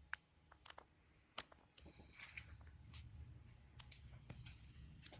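Very faint scattered clicks and ticks over a low background hum, with a couple of brief soft hisses.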